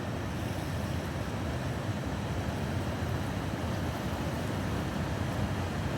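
Rhine Falls waterfall: a large volume of water rushing and crashing in a steady, unbroken roar, heaviest in the low end.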